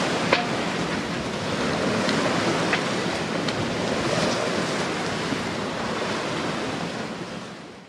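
Water rushing along the hull of a sailing yacht under way at about seven knots, mixed with wind, a steady rush that fades out at the end.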